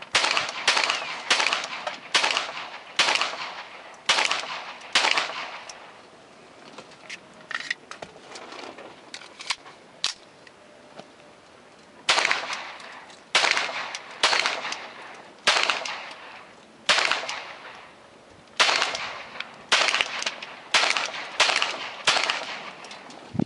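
Small pistol fired in two strings of single shots, about one a second: seven shots, a pause with a few faint clicks, then about ten more. Each shot is sharp, with a short ringing echo.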